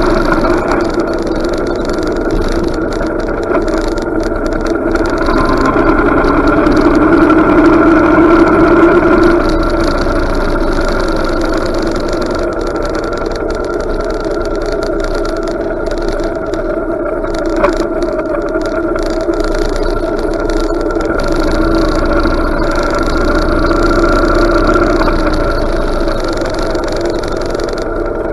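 Motorcycle engine running while riding, getting louder for a few seconds about a third of the way in, then easing off to a lower, even run as the bike slows.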